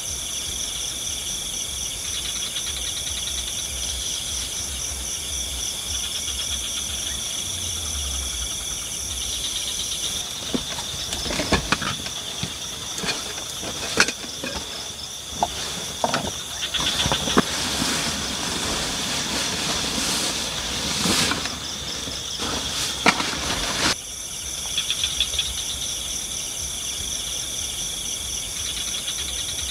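Night chorus of crickets, a steady high pulsing trill. From about ten seconds in until about 24 seconds, a run of scattered knocks and clicks sounds over it.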